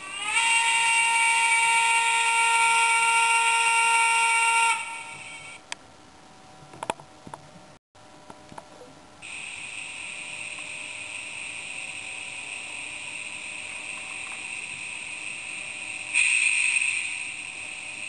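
Sound decoder of a Roco H0 model steam locomotive sounding a steam whistle: one long blast of about four and a half seconds that slides up in pitch as it starts. After a few clicks it gives a steady hiss of steam, which grows louder near the end.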